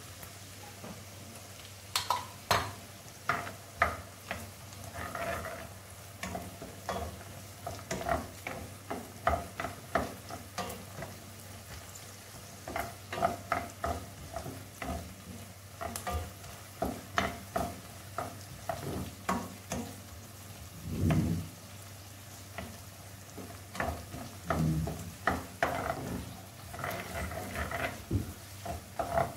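A wooden spoon stirring frying onions with tomato paste and paprika in a stainless steel pan. It knocks and scrapes against the pan in quick, irregular strokes over the sizzle of the frying.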